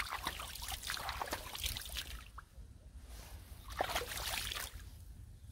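Rottweiler puppy lapping and splashing water at the edge of a muddy ditch. A quick run of wet slaps lasts about two seconds, then a short pause, then another burst about four seconds in.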